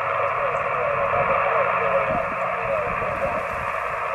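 Steady band-limited static hiss from an Icom IC-706 HF transceiver's speaker while receiving on 20 meters, with a weak, garbled voice signal faintly mixed into the noise.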